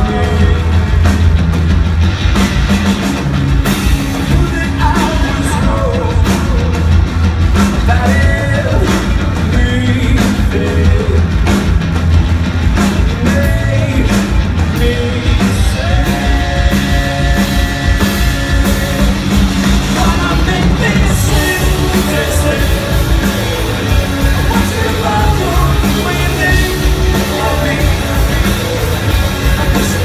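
Live rock band playing loud and without a break, with electric guitars, bass guitar and drum kit, recorded from the crowd.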